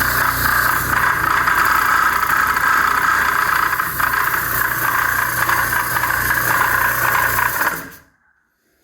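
Schulz direct-drive air compressor running with a very loud internal noise, then switched off about eight seconds in. The noise is the sign of a fault that the owner suspects is a loose counterweight on the connecting rod and crankshaft.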